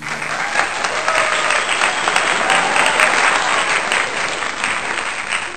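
Crowd applause sound effect: many hands clapping, starting suddenly and fading out near the end.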